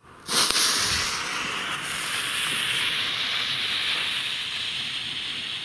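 Lit fuse of a Weco Super Böller 2 firecracker hissing steadily as it burns down, catching a moment in.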